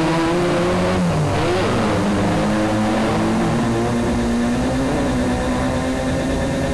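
Several off-road race buggy engines running hard at once, their pitches rising and falling and crossing each other as they accelerate and shift.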